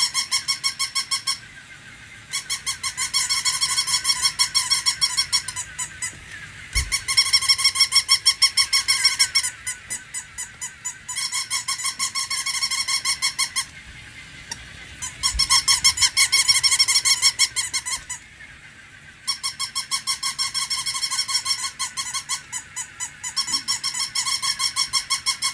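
Battery-operated toy puppy's electronic yapping: a rapid run of high, squeaky pulses, in stretches of a few seconds broken by short pauses.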